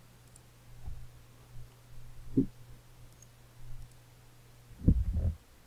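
A few soft computer mouse clicks, picked up as low knocks over a steady low hum. The loudest are a quick pair near the end.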